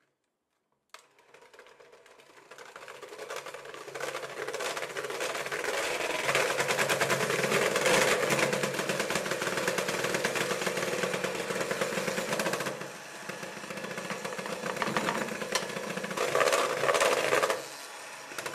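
Electric hand mixer running, its beaters whirring through thick cake batter. It starts with a click about a second in and builds up over the next few seconds, eases off a little past the middle, then picks up again shortly before the end.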